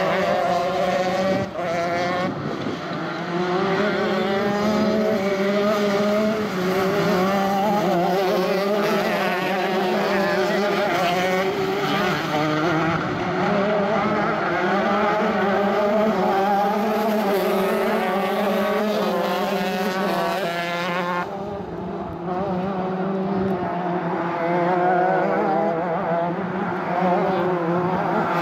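Several racing kart engines running at high revs, their pitch rising and falling as the karts accelerate and brake through the corners. The sound turns duller about three-quarters of the way through.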